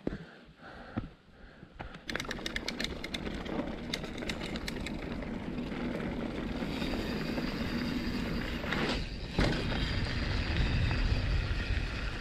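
Canyon Torque mountain bike being ridden down a dirt forest trail: tyres rolling over the ground with rapid clicks and rattles from the bike, starting about two seconds in. A low rumble, like wind on the microphone, grows stronger over the last few seconds.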